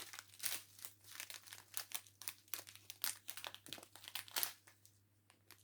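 Small plastic packets of diamond painting drills crinkling as they are handled and sorted: a quick run of irregular rustles that thins out near the end.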